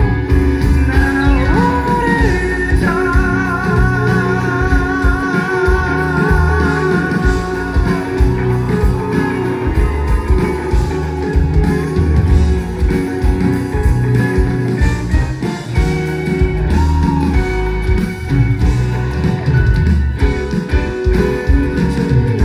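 Live pop-rock band playing an instrumental passage: a guitar carries a wavering held melody line over a steady beat of drums and bass.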